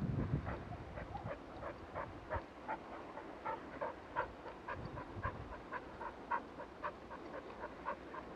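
Dog panting in quick, even breaths, about three a second, as it runs alongside. A low rumble of wind on the microphone is heard in the first couple of seconds.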